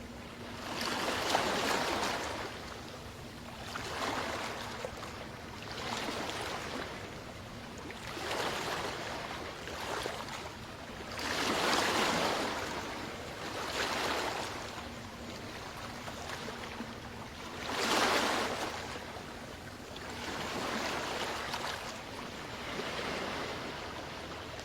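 Ocean waves breaking on a beach, each wash swelling and fading every few seconds, some breaks louder than others.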